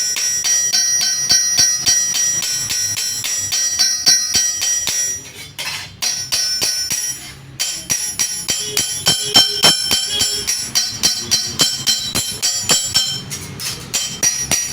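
Hammer striking a steel sheet in quick repeated blows, each ringing metallically, with two short pauses: the sheet is being flattened.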